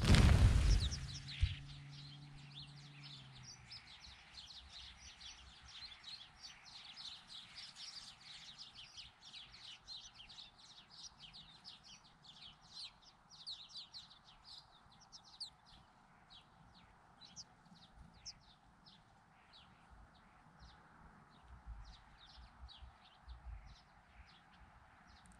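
A feeding flock of birds flushing all at once, a sudden burst of wingbeats lasting about a second, followed by many high, thin chirping calls, several a second, that thin out toward the end.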